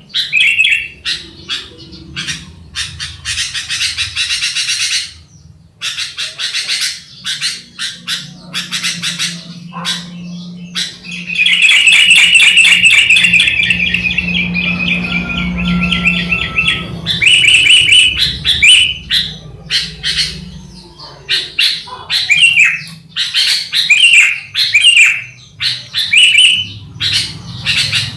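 Sooty-headed bulbuls (kutilang) singing and calling: repeated short chirps and fast chattering runs, with a longer, busier stretch of song in the middle.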